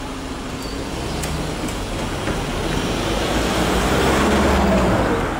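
Cars driving over a level crossing, the tyre and engine noise growing as one passes close by, loudest about four seconds in.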